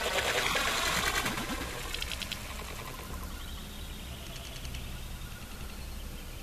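Splash on a still lake as water falls back onto the surface, loudest at first and dying away after about two and a half seconds. Then a faint steady outdoor background remains.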